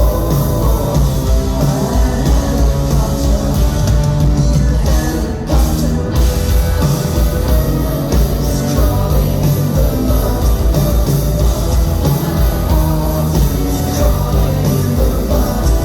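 Live rock band playing a song at full volume, with drums and guitar. The sound dips briefly about five and a half seconds in.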